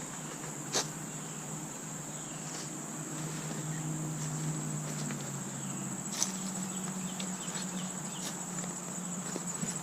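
Steady high-pitched drone of insects singing, with a faint low hum underneath and a few sharp clicks, the loudest about a second in and about six seconds in.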